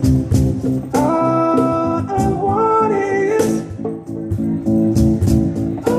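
Live band music: electric stage keyboard and cajon percussion, with a held, gliding lead melody over a steady beat.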